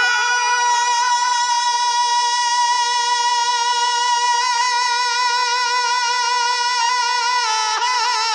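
A naat reciter's unaccompanied voice holding one long sung note, a melisma on a single syllable in the middle of a line of the naat. The note wavers at the start, stays steady for several seconds, and shifts slightly near the end.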